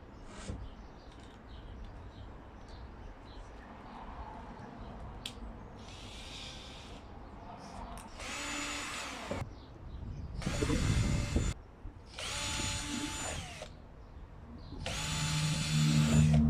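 Power drill running in short bursts, a faint one first and then four louder ones, each a steady motor whine, while drilling or screwing hinges onto a wooden roof.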